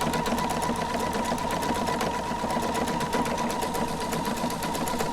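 Computerised sewing machine running steadily under its start-stop button, sewing a decorative stitch: a fast, even ticking of the needle over a constant motor whine.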